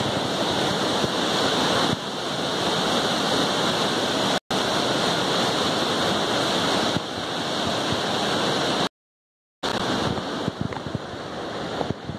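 Snowmelt-swollen mountain creek rushing and cascading over granite boulders in whitewater: a steady, loud rush of water. It cuts out twice, once for a split second about four and a half seconds in and again for under a second about nine seconds in.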